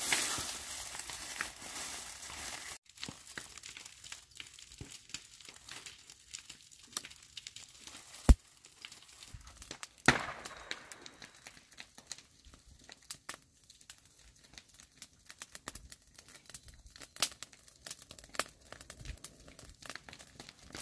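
Dry grass stalks rustling and crackling, with many small clicks and a sharp snap about eight seconds in.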